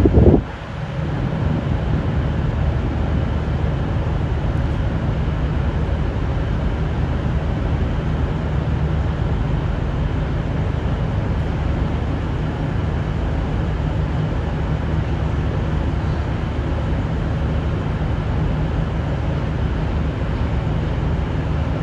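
Diesel engines of a V/Line VLocity train running with a steady low drone, after a brief loud bump right at the start.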